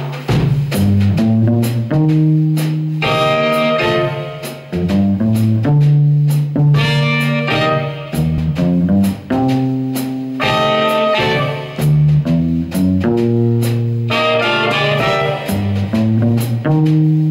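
Small jazz combo playing: saxophone and trumpet carrying the melody in phrases over an electric bass guitar line, piano and drum kit, with steady cymbal strokes.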